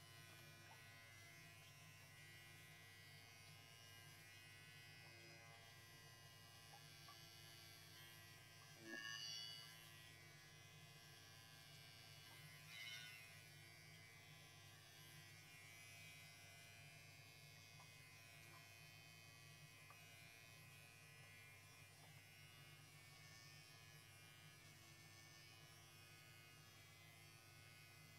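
Electric hair clippers running with a steady low buzz while trimming a cat's long fur, with two brief louder, higher sounds about nine and thirteen seconds in.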